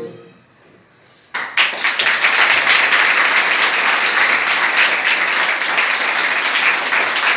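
An audience applauding, breaking out suddenly about a second and a half in after the music fades and a short lull, then going on steadily.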